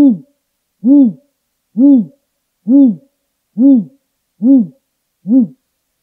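Great grey owl (Strix nebulosa) singing: a series of seven deep hoots, each rising and then falling in pitch, about one a second, coming slightly faster toward the end.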